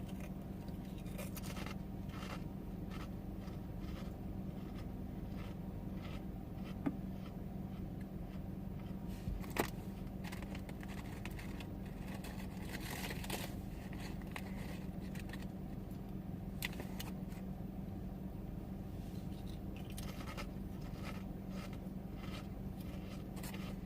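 Steady low hum inside a car, with scattered faint clicks and rustles from eating and handling things in the seat.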